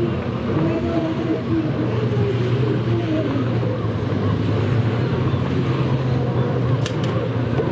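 Racing jet ski engines running hard, their pitch wavering up and down as the craft turn, with water spray and wind on the microphone. A brief click comes near the end.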